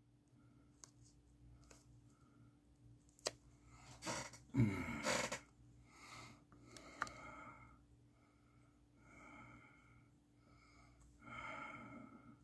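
A man breathing through his nose, a faint breath every second or two, with a sharp click about three seconds in and a louder rough breath or throat noise around four to five seconds in.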